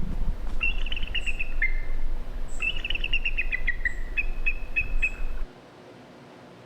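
A recorded animal call played back: bird-like high chirping in two fast, trilled phrases, the second longer than the first. The playback cuts off about five and a half seconds in.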